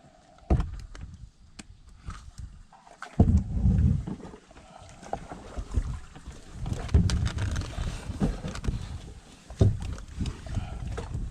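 Paddling a small boat made from a sheet of corrugated plastic: irregular knocks and water sounds, with gusts of wind buffeting the microphone. The loudest gusts come about three seconds in and again around seven seconds.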